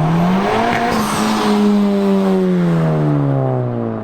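Honda Civic Type R's turbocharged 2.0-litre four-cylinder under hard acceleration, revs climbing, then a brief hissing rush of air about a second in as the throttle lifts. The revs then fall steadily.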